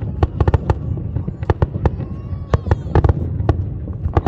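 Fireworks display: shells bursting in a rapid, irregular run of sharp bangs, several a second, over a steady low rumble.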